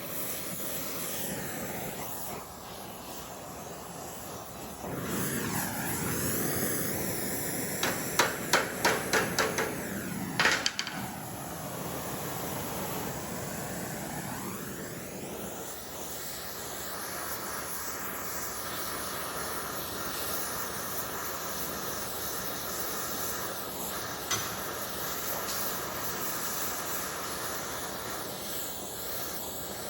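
Blacksmith's hammer striking metal: a quick run of about eight ringing blows about eight seconds in, two more just after, and a single strike later on, over a steady hiss.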